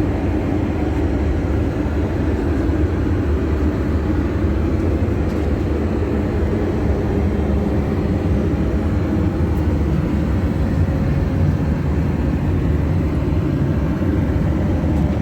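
Steady cabin noise inside a Boeing 737-800 with CFM56 engines: an even, unchanging rush of engine and airflow noise, deepest in the low range.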